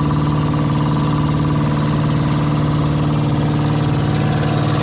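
Small fishing boat's engine running at a steady speed, an even drone with no change in pitch.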